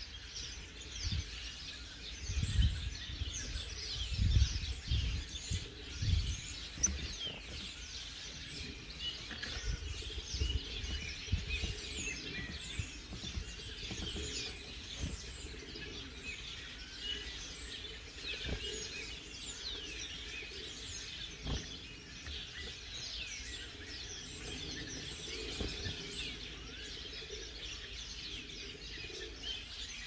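Garden birds chirping and calling without a break, many short high chirps overlapping one another. Low thumps and rumbles come through on the microphone over the first several seconds.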